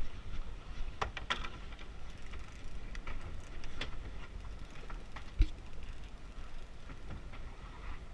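Low steady rumble of a fishing boat with scattered mechanical clicks and knocks of fishing gear as line is reeled in, and one sharper knock about five and a half seconds in.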